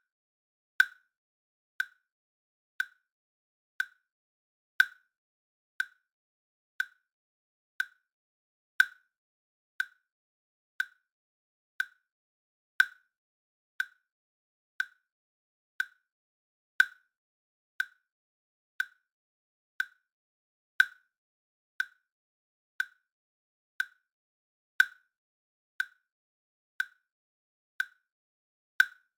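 Countdown timer sound effect: a short, high pitched tick once every second, every fourth tick louder than the three between.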